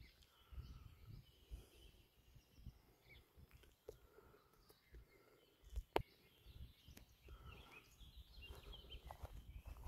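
Near silence with faint birdsong, small birds chirping here and there, over a low uneven rumble. One sharp click about six seconds in.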